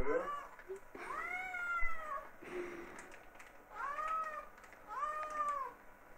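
Domestic cats meowing for food while it is being prepared: a long, drawn-out meow about a second in, then two more about four and five seconds in, with shorter calls between.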